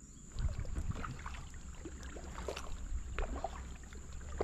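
Kayak paddle dipping and pulling through the water: irregular small splashes and drips, over a steady low rumble.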